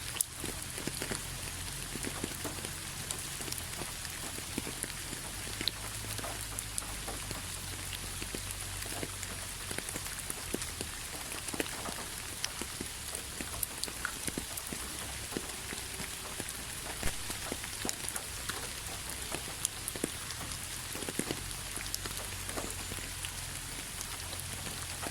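Rain falling steadily, with many irregular drops tapping on a hard surface over a soft hiss.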